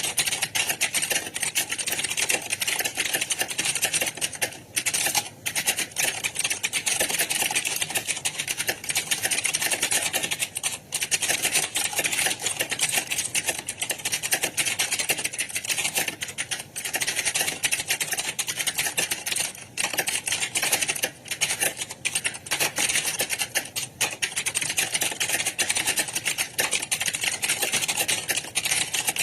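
Fast computer-keyboard typing: a dense, unbroken stream of key clicks, with a few brief lulls.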